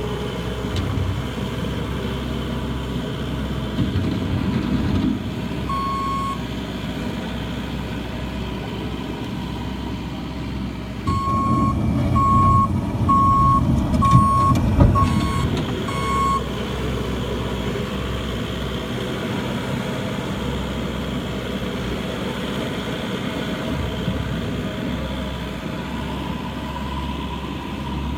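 A Bobcat's engine running steadily, working harder for a few seconds in the middle, while its reversing alarm beeps once about six seconds in, then six times at about one beep a second.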